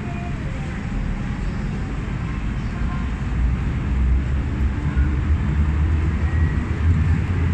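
Hong Kong MTR M-Train electric multiple unit pulling out of an underground station behind platform screen doors. Its motors and wheels make a low rumble that grows louder as it gathers speed.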